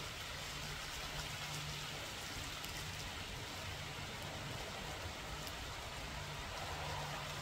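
Steady rain falling, with faint scattered ticks of drops.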